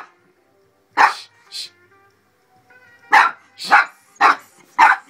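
Dog barking: a loud bark about a second in and a softer one right after, then a run of four barks about half a second apart near the end.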